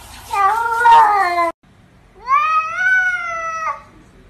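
Cats meowing: one meow cut off abruptly about a second and a half in, then a longer meow that rises in pitch, holds and falls away.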